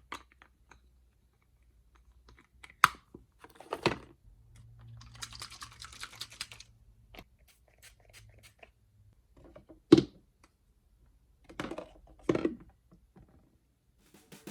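Scattered light knocks and clicks of objects being handled, a handful of separate strikes, with a soft hissing stretch about five seconds in.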